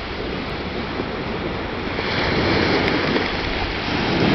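Small waves breaking on the shore, with wind rumbling on the microphone; the noise grows louder about halfway through.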